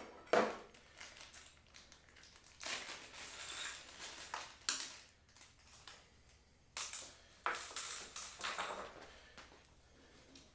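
Plastic parts bag crinkling and rustling in short irregular bursts as it is handled and opened, with light handling noise from small hardware.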